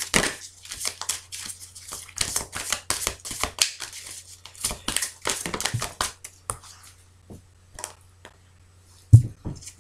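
Oracle cards being shuffled by hand: a rapid run of card flicks and slaps that thins out after about seven seconds, with a single soft thump near the end.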